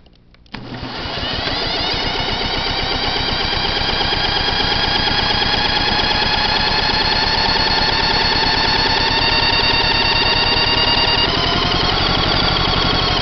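Power drill spinning a Kawasaki FC150V mower engine over through a socket on the flywheel nut: a steady whine as the cold engine cranks without choke and does not yet catch. The pitch creeps up slightly and shifts about eleven seconds in.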